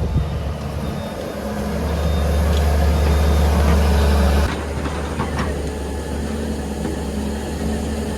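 Heavy diesel engine of earthmoving machinery running with a deep steady hum. It rises in level for a few seconds, then drops suddenly about four and a half seconds in, with a few faint clanks just after.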